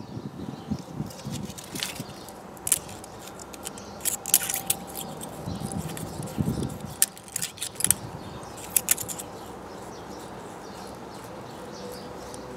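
Sharp metallic clicks and light scraping of a small hand tool against the exposed camshaft and valve buckets of a BMW K75 cylinder head while the valve gap is checked, with a few dull handling bumps; the clicks stop about three quarters of the way through.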